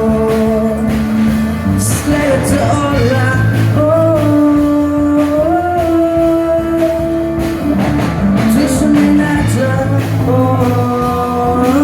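Live rock song: a voice singing long held notes over guitar accompaniment with a steady beat.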